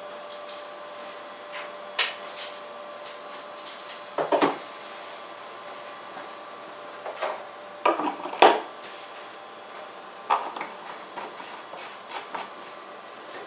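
Scattered knocks and clicks of hand work on a mower (a tape measure and parts being handled), a handful of separate sharp sounds over a steady background hum.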